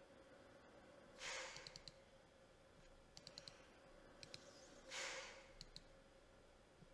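Faint computer mouse clicks in small quick groups, with two soft breaths out near the microphone, about a second in and about five seconds in.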